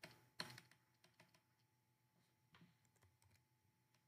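Near silence, with a few faint clicks in the first half-second from a stylus tapping on a pen tablet while writing.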